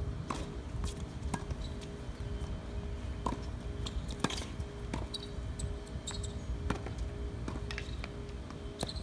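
Tennis rally on a hard court: sharp pops of the ball being struck by racquets and bouncing, one every second or two, over a steady hum.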